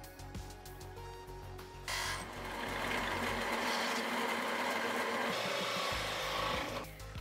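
Benchtop drill press running and boring into plywood. It starts abruptly about two seconds in, runs steadily for about five seconds, and stops shortly before the end, over background music.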